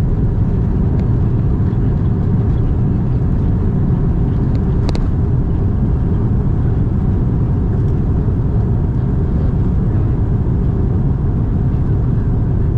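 Loud, steady rumbling roar inside an Airbus A330-200 cabin during the landing rollout: the turbofan engines in reverse thrust together with the rumble of the wheels on the runway. A light click sounds about five seconds in.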